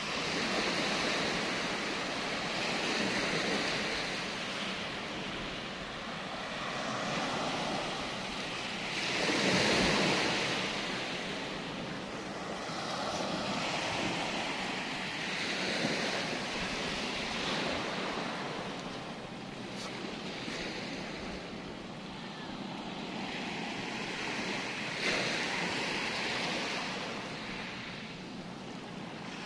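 Sea surf breaking and washing up the beach, swelling and falling back every two to three seconds, with wind buffeting the microphone.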